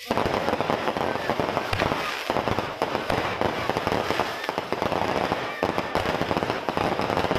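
Fireworks going off in a rapid, continuous run of cracks and pops.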